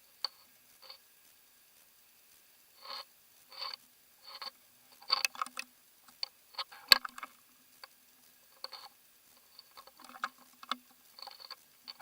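Underwater clicks, rustles and scrapes from a fishing camera rig being jerked on the line, in short bursts about every 0.7 s at first and then irregular, with one sharp click about seven seconds in.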